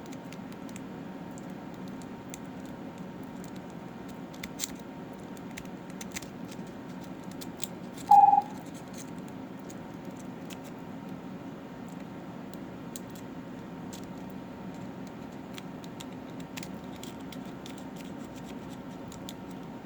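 Faint scratching and light clicks of a lock pick and tension wrench working the pins of a small padlock, over a steady low hum. About eight seconds in, a single short, loud beep.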